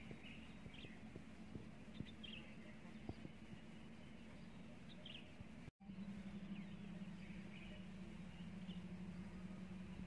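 Faint, scattered bird chirps over a low steady hum, with a few soft clicks. The sound cuts out for an instant a little over halfway through.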